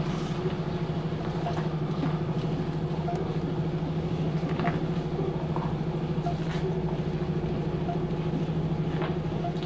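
A DAF XF lorry's diesel engine running steadily, heard from inside the cab as the truck moves slowly off.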